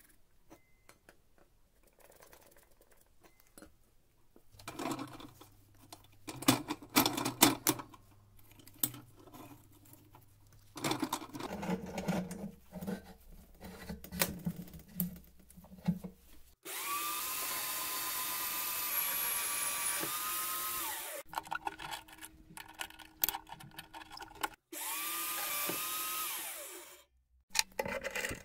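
Metal parts and tools handled on a workbench with scattered clicks and knocks, then an electric power tool run twice, first for about four seconds and then for about two, each a steady high whine that ends when it is switched off.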